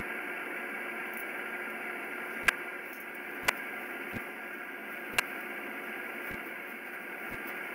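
Steady static-like hiss with a faint hum, broken by several sharp clicks spaced roughly a second apart.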